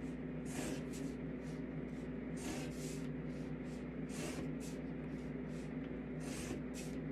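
Pencil drawing lines along a plastic ruler on paper: a series of short scratchy strokes, a main one roughly every second and a half with quicker ones between, over a steady low hum.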